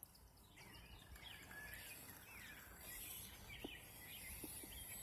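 Faint birds chirping and singing over quiet outdoor background noise.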